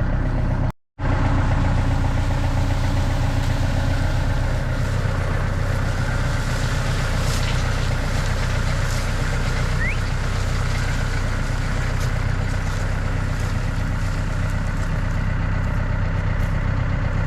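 Landini tractor's diesel engine running steadily at a low, even note, with a brief cut-out just under a second in.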